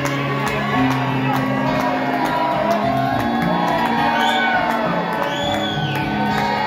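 Several acoustic guitars playing together over the hall's PA, with steady held low notes under strummed chords. Audience members shout and whoop over it, twice in long rising-and-falling calls near the middle.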